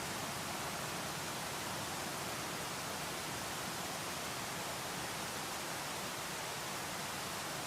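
Waterfall: a steady, even rush of falling water, mostly high hiss with little low rumble and no change throughout.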